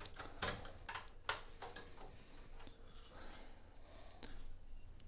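Faint clicks and short scrapes, a few scattered ones, as a PCI network card is worked out of its slot in a desktop PC's case, the card edge and metal bracket rubbing on the case.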